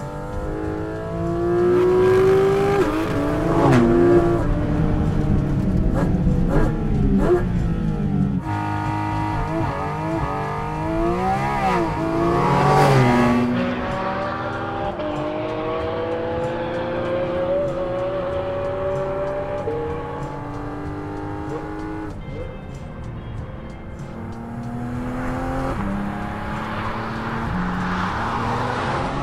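Porsche 718 Cayman GT4 RS's naturally aspirated 4.0-litre flat-six revving hard through the gears on track, its pitch climbing and dropping back at each upshift. The pitch swoops twice as the car passes close by.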